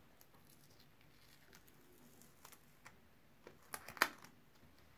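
Quiet handling sounds of fingers and a cloth working over a camera's glass screen protector: scattered light taps and rubs, then a cluster of sharper clicks and a knock just before four seconds in as the camera is gripped and moved.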